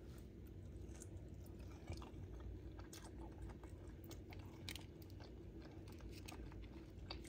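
Faint chewing of a lightly breaded chicken nugget dipped in sauce, with small scattered clicks and soft crunches.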